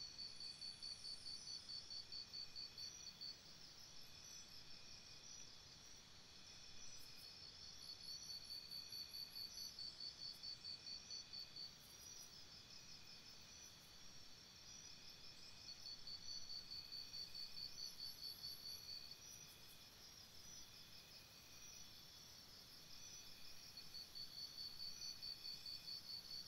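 Faint tropical forest insect chorus: a high pulsed trill at about four pulses a second comes in bouts of three to four seconds, repeating about every eight seconds, over a steady high insect drone.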